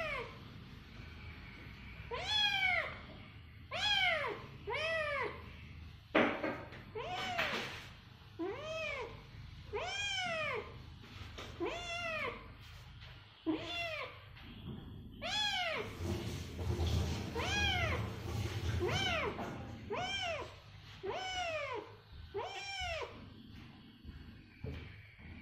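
A young kitten meowing over and over, about one high-pitched cry a second, each cry rising and then falling in pitch.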